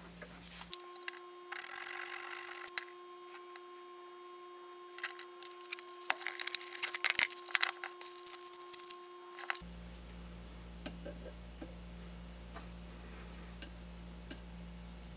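Steel pin punches clicking and clinking in a red fabric roll-up pouch as the set is handled and a punch is picked out. A short rustle of the pouch comes first, then a dense run of sharp metal clicks. Near the end come a few faint taps as a small brass tube is handled on a steel block.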